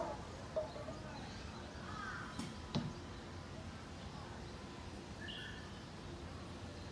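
Steady outdoor background noise with several short bird calls; the loudest comes right at the start, and another high call follows a little after five seconds. A couple of faint clicks fall about two and a half seconds in.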